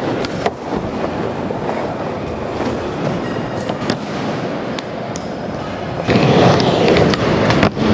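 Skateboard wheels rolling over wooden ramps, a steady rumble broken by sharp clacks of the board and trucks striking the surface now and then. The rolling gets louder about six seconds in.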